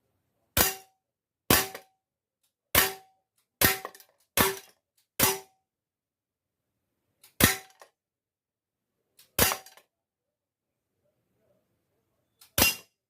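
Airsoft Sig Sauer P226 pistol firing nine single shots at uneven intervals, each a sharp crack with a short ringing tail.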